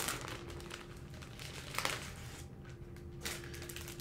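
Packaging rustling and crinkling softly as it is handled and opened, with a couple of sharper rustles about two seconds in and again just after three seconds.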